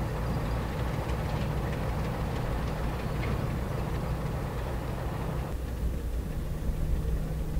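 Two NSW 48 class diesel-electric locomotives with six-cylinder Alco engines running at low throttle as they move off slowly, giving a steady low engine hum. The higher-pitched noise drops away abruptly about five and a half seconds in.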